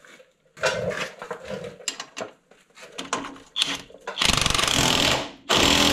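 Socket and extension clinking on a bolt, then a cordless power tool runs in a long burst about four seconds in and a shorter one near the end. It is running down the pinch bolt that clamps the upper ball joint stud in a 2003 Chevrolet Trailblazer's upper control arm.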